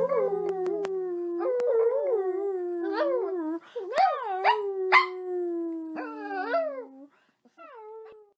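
A small dog howling in long wavering howls that swoop up and fall back several times, with a woman howling along. The howling fades out about seven seconds in.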